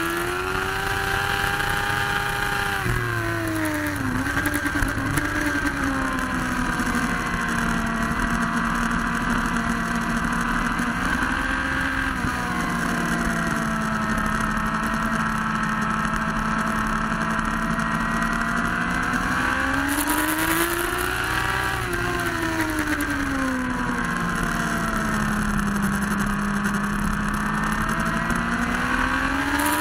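Motorcycle engine heard from an onboard camera at track speed, under wind rush. The note drops over the first few seconds as the bike brakes from high speed into a corner, holds steady through long bends, swells and falls again about two-thirds through, and rises near the end as it accelerates.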